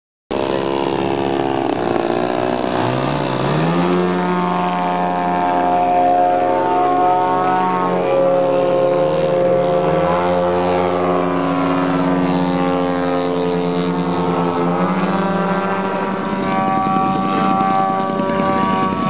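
Engine and propeller of a radio-controlled aerobatic airplane in flight, a steady buzzing drone whose pitch rises and falls as it flies.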